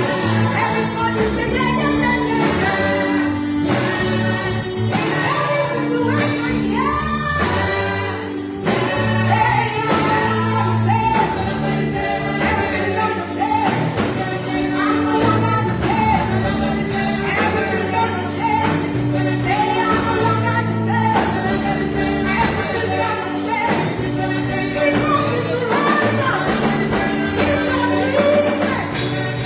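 Gospel singing: a group of voices singing together over instrumental accompaniment with a steady bass line.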